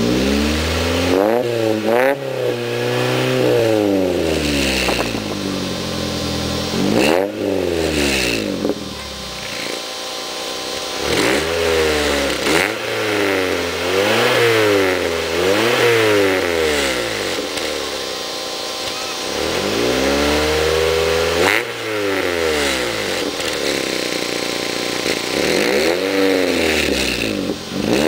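Toyota AE86's 4A-GE four-cylinder engine revved repeatedly with the car standing still, heard right at the Varex Rocket muffler's tailpipe: a series of throttle blips, each rising quickly and falling back toward idle, some in quick succession, with longer idle stretches between groups.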